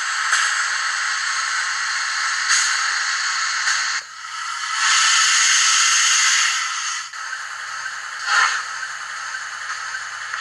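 Steam-locomotive sound effects from the HM7000 sound decoder in an HO-scale Rivarossi Gr685, played through the model's small speaker. A steady hiss of steam, with a louder blast of venting steam from about five to seven seconds in and a short puff near the end.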